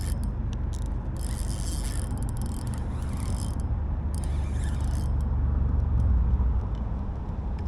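Fishing reel working during the fight with a hooked jack crevalle: bursts of high mechanical buzzing from the reel in the first few seconds, over a steady low rumble.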